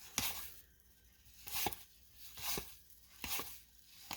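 Cardboard baseball cards being slid off a stack one at a time by hand: four brief papery swishes about a second apart, with small ticks as the card edges meet.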